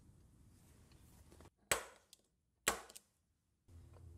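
Two sharp knocks about a second apart, from a copper boiler shell and its small brass bushings being handled.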